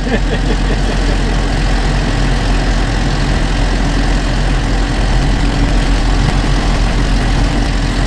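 Tractor engine running steadily, heard from inside the cab.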